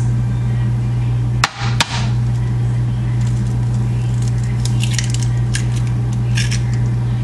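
Eggs being cracked: two sharp knocks of shell against a hard surface, then faint crackly clicks as the shells are pulled apart. A steady low electrical hum runs underneath throughout.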